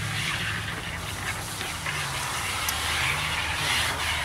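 A steady low engine-like hum, its pitch wavering slightly, under faint clicks and rattles of metal parts being handled.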